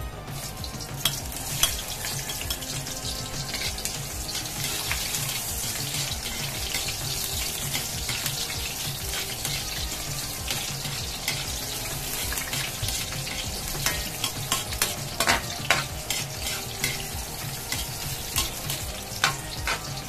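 Sliced onion and ginger sizzling steadily in hot cooking oil in a metal wok. A metal spoon stirring them clinks and scrapes against the pan, most often near the end.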